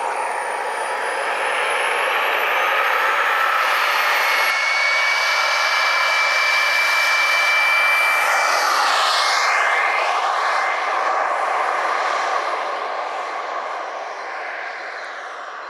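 Turbine engine of an Exocet RC model jet, a steady high whine that climbs in pitch over the first few seconds and then holds at full power. About nine seconds in, the pitch drops as the jet passes by, and the sound then fades as it flies away.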